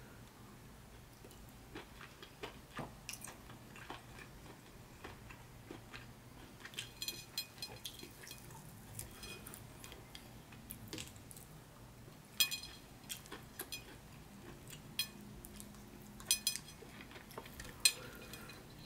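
Long acrylic fingernails clicking and tapping against a ceramic plate while fingers pick through stewed beef in sauce. Scattered light ticks run throughout, with several brighter ringing clinks of the plate in the second half.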